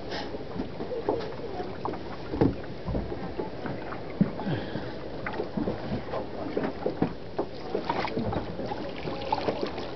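Sea water lapping and splashing against the hull of a boat, a steady wash broken by many small irregular splashes and a couple of louder knocks.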